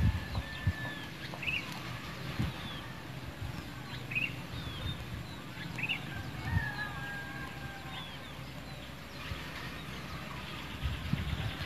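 Birds calling: many short high chirps and whistles, with a couple of longer held whistled notes in the middle, over a faint steady outdoor hiss. A few low thumps near the start and toward the end.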